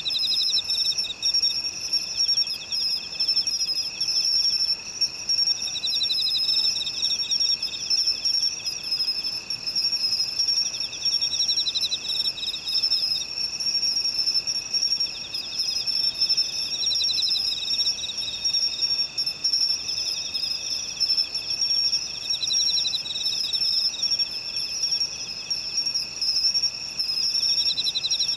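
Chorus of singing insects in grassland: several steady high trills run on together, and one pulsed trill swells up and fades again about every five or six seconds.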